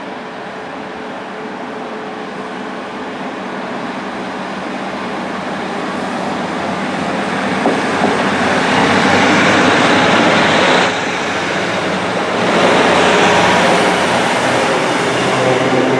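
Diesel train running through the station. Its noise grows steadily louder as it approaches and is loudest as it passes close, from about eight seconds in, with a brief dip partway through.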